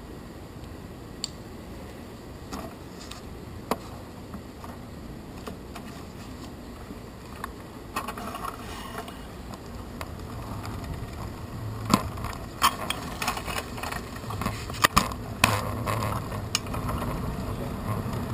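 Bicycle rattling and ticking as it rolls over pavement, picked up through a handlebar-mounted camera. It starts with a few scattered clicks, grows busier after about 8 seconds, and has several sharp knocks in the second half as the ride gets rougher.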